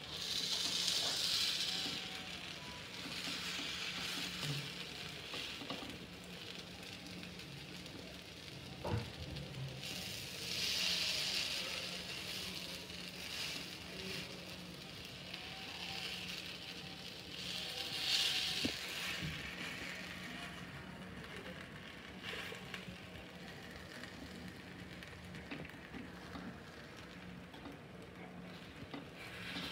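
Oil sizzling around paddu frying in the cups of a paddu (appe) pan. The sizzle swells and fades in waves as the paddus are turned, with a few light clicks of a fork against the pan.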